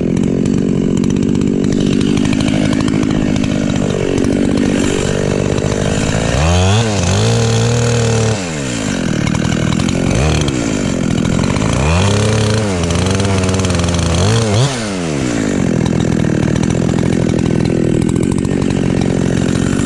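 Gas chainsaw running at high revs while cutting an ash tree. Twice the engine note sags under load and climbs back, about seven and thirteen seconds in.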